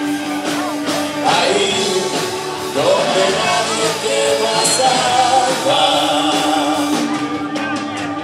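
Live rock band playing with electric bass, drum kit, keyboard and vocals, loud and full, with a run of drum and cymbal hits near the end.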